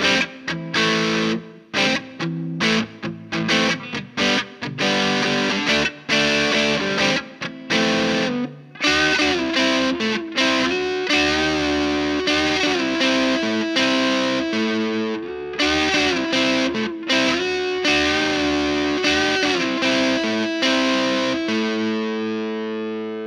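Electric guitar played through a distorted amp: short, chopped chords with gaps at first, then held chords with string bends from about nine seconds in, and a last chord left ringing near the end.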